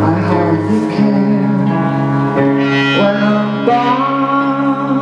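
Live band music in an instrumental gap between sung lines: sustained keyboard chords over a held low bass note that changes pitch about a second in.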